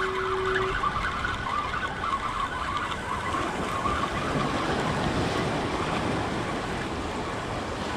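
Ocean surf with wind on the microphone, while a spinning reel is cranked steadily to wind in a crab snare. A brief steady tone sounds right at the start.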